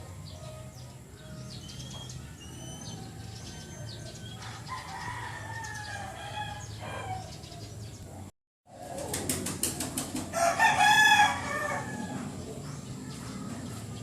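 A rooster flapping its wings and then crowing loudly once, with small birds chirping before it.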